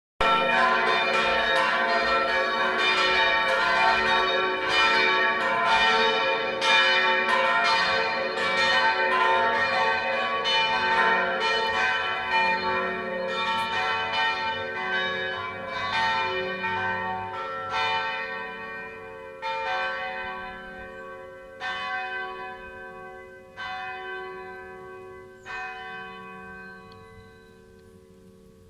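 Monastery church bells ringing: a dense, rapid peal of several bells at first, thinning out to single strokes about two seconds apart after the midpoint, the last stroke about 25 seconds in, with the low hum of the bells fading away at the end.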